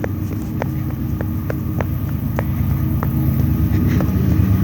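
Norfolk Southern freight train passing: a steady low rumble with sharp clicks about twice a second, slowly growing louder.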